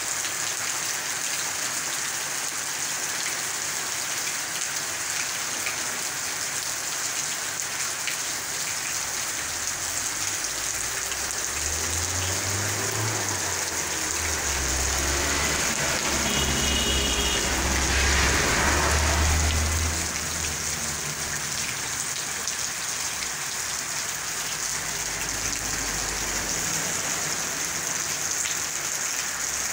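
Rain falling steadily on concrete paving and grass, an even hiss. Through the middle a low rumble builds, peaks and fades again.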